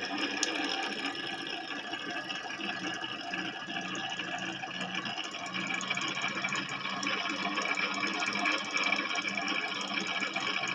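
A small electric motor running steadily, with a continuous whine and hum.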